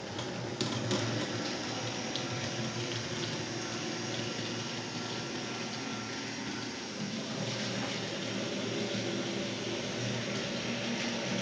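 Steady rushing hiss with a low hum: the small electric motors and wheels of H0-scale model trams running on the layout's track.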